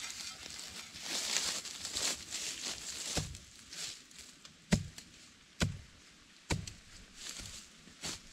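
Steps rustling through dry grass and fallen leaves, then a spade chopping into the turf in several sharp strikes, each with a low thump, about a second apart.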